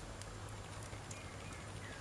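Wood campfire crackling: a few light pops and snaps of burning wood over a low steady rumble.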